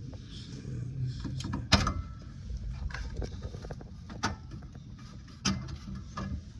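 Sharp clicks and knocks of wiring being handled on a heat pump's control board as its wires are taken off one by one. The loudest comes about two seconds in and two more follow later, over a steady low hum.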